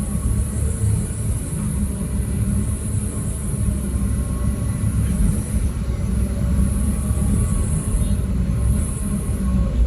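Heavy diesel machinery running with a steady deep rumble. A high hiss sits above it, swelling and fading a few times.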